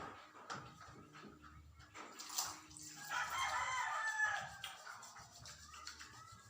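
Tap water running and splashing as hands are washed. About three seconds in, a loud, drawn-out pitched call sounds in the background, with a fainter one near the end.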